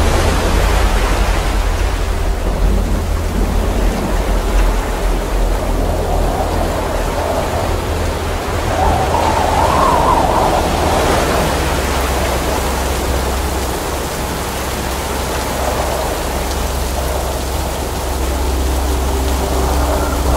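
Storm sound effect: a steady rushing of rain over a continuous low rumble of thunder, swelling about halfway through. Faint steady tones come in near the end.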